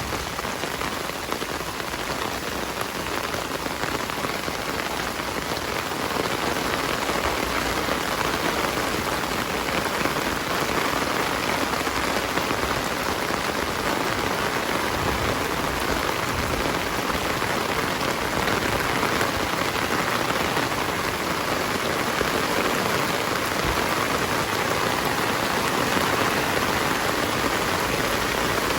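Heavy rain falling steadily, an even hiss with no other sound standing out; it grows slightly louder about six seconds in.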